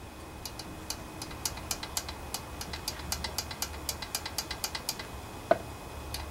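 Rapid light metallic clicking from the rocker arms of a Honda GC160 engine's valve train being worked by hand, about five clicks a second, with one louder knock near the end. The clicking is play in the valve train, which the mechanic takes for a noisy valve out of adjustment.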